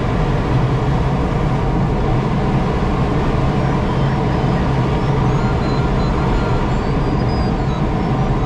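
Steady, loud noise in a sailplane cockpit: an even rush with a low hum underneath that does not change.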